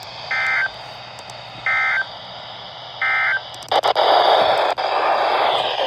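Three short, identical bursts of warbling NOAA Weather Radio SAME (Emergency Alert System) digital data tones, about a second and a half apart. After them, loud radio static hiss sets in for the rest.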